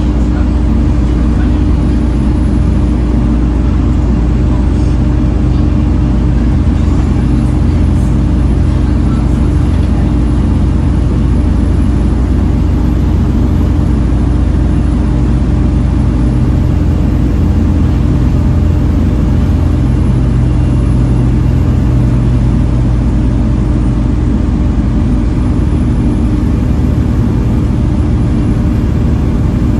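Volvo B7TL double-decker bus's seven-litre six-cylinder diesel running steadily, a constant deep drone with a faint high whine that slowly rises and falls in pitch.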